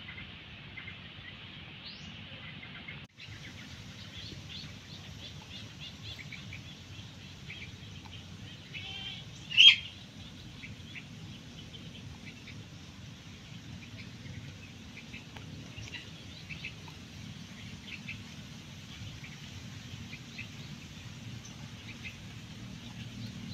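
Birds chirping with many short high calls over a low steady background, and one louder call about ten seconds in.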